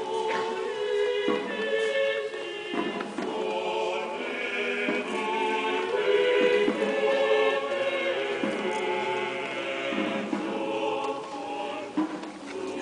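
A choir singing a hymn, moving in long held notes.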